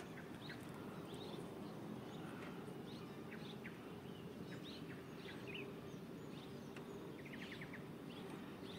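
Faint chirps and twitters of small birds scattered throughout, with a quick trill of about five notes around seven seconds in, over a steady low background hum.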